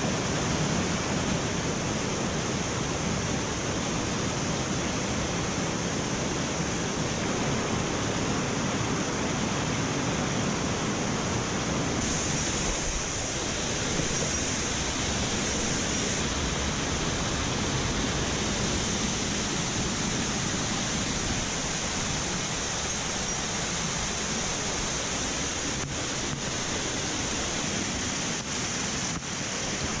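Rushing water of a mountain stream, a steady loud rush with no breaks.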